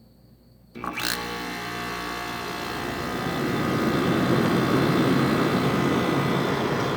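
Room air conditioner's rotary compressor kicking on suddenly about a second in, once the thermostat is turned up, then running steadily with a mechanical hum that grows somewhat louder over the next few seconds.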